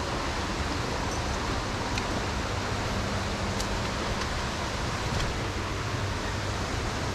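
Waterfall rushing, a steady even roar of falling water, in high flow two days after a major storm.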